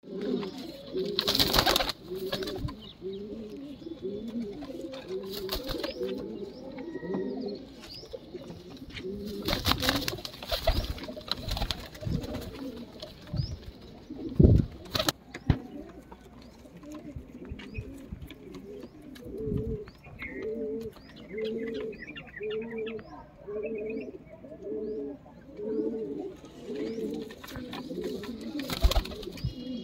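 Punjabi flying pigeons cooing in a loft: a near-continuous run of low, evenly repeating coos. Several short bursts of wing flapping come through, one near the start, one about a third of the way in and one near the end. A couple of sharp knocks sound about halfway through.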